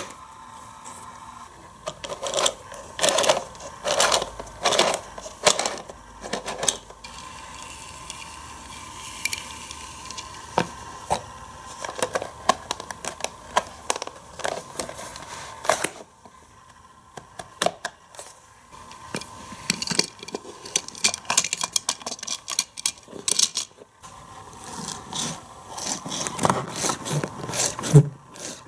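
Hard plastic parts of a Hot Wheels car wash playset clicking, snapping and rattling as they are handled, in irregular clusters of sharp clicks with short pauses between.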